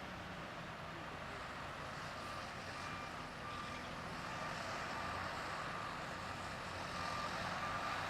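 Construction vehicle's reversing alarm beeping at an even pace from about two seconds in, over the steady running of heavy machinery engines.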